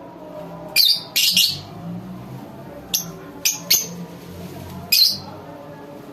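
Lovebirds giving a series of short, shrill chirps, about seven in all, spread unevenly through a few seconds.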